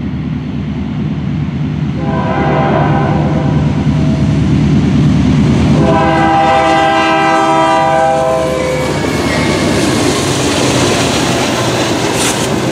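Diesel freight locomotive air horn sounding two blasts, a shorter one about two seconds in and a longer one about six seconds in. Under them the low rumble of the lead diesel locomotives grows louder as the train comes up and passes close by near the end.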